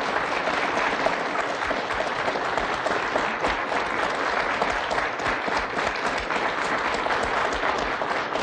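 Studio audience applauding, a steady sustained round of clapping.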